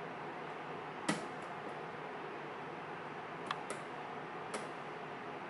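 Lock pick and tension tool working in a CES euro cylinder's keyway: a few sharp metallic ticks, the loudest about a second in and three fainter ones between three and a half and four and a half seconds, over a steady hiss.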